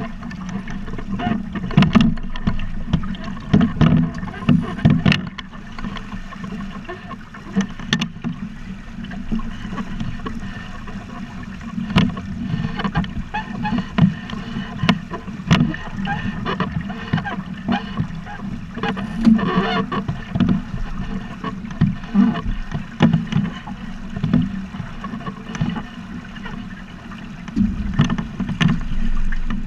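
Water rushing and slapping against a Buccaneer 18 sailboat's hull as it sails, heavy in the low end, with frequent irregular knocks and thumps from waves hitting the bow.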